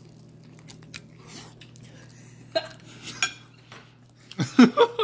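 Metal fork and cutlery clinking against plates and dishes at a dinner table, with a few sharp clinks a little past halfway and a louder cluster of knocks and clatter near the end, over a low steady hum.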